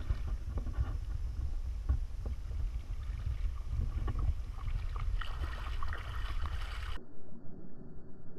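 Shallow water sloshing and splashing as a Pembroke Welsh corgi puppy wades through it, with wind rumbling on the microphone. About seven seconds in, the sound suddenly turns low and muffled.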